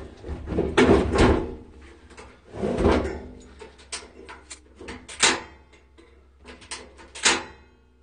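A handful of brief knocks and clatters of things being handled and set down, the loudest about a second in, near the middle and near the end.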